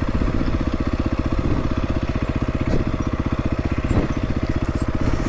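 Beta 430 RR-S enduro bike's single-cylinder four-stroke engine running steadily at low revs with an even, rapid beat and no revving. A couple of light knocks come about three and four seconds in.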